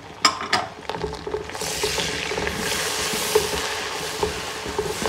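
Chopped tomatoes and green chillies frying in hot oil with onions and spice paste, stirred with a spatula in a cooking pot. Two sharp knocks in the first second, then a strong, steady sizzle sets in about a second and a half in. The sizzle cuts off suddenly at the end.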